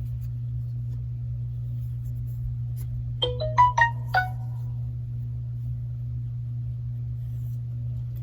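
Phone notification tone: four quick electronic notes about three seconds in, over a steady low hum.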